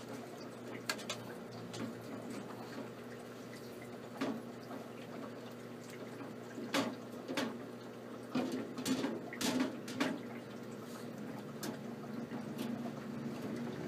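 A hamster headbutting the roof of its enclosure: irregular sharp knocks, with a quick run of them in the second half, over a faint steady hum.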